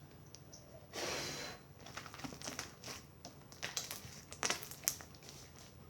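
Slime being worked by hand: a short rush of noise about a second in, then a string of small wet clicks and crackles as it is squished and stretched.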